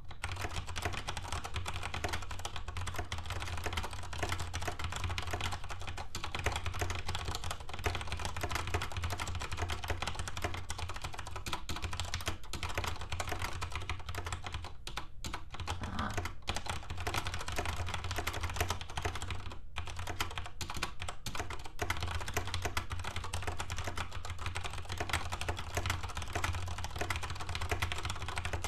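Fast, continuous typing on a DSI Modular mechanical keyboard with Cherry MX Brown switches: a dense clatter of key clicks, broken by a couple of brief pauses about halfway through, over a steady low hum.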